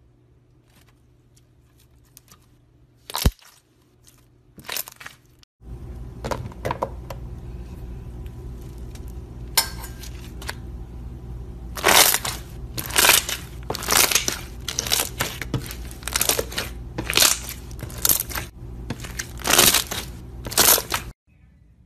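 Crunchy slime being squeezed and pressed by hand, giving crackling, crunching pops. A few sharp snaps come first, then over a steady low hum the crackles come in loud, dense clusters through the second half before stopping suddenly.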